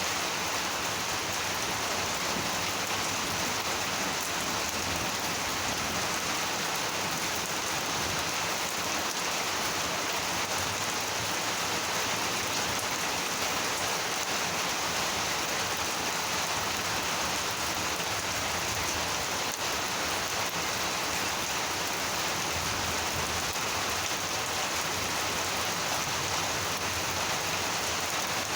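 Heavy monsoon rain falling steadily, a constant even hiss of rain hitting the ground and surfaces.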